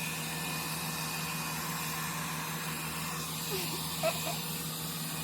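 Hot-air brush hair dryer running steadily: an even blowing hiss over a constant motor hum, with a brief small sound about four seconds in.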